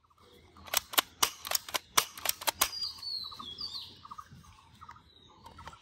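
Plastic toy AK-47 rifle clicking as it is handled: a run of about ten sharp, irregular clicks in the first half, then quieter.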